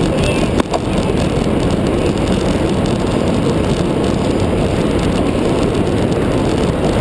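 Steady, loud wind rush and road rumble on the microphone of a handlebar-mounted camera on a road bike at race speed, with one sharp click a little over half a second in.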